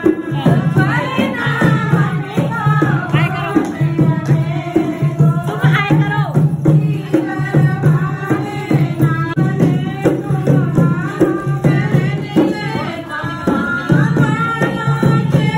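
Group of women singing a folk song together, accompanied by a dholak drum keeping a steady beat.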